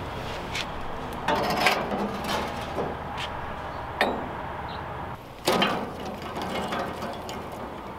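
Handling clatter as a metal pot-support ring is set down on a fire-brick rocket stove and dry twigs are handled beside it: scattered sharp knocks and clicks, with a louder rustling clatter of sticks about five and a half seconds in.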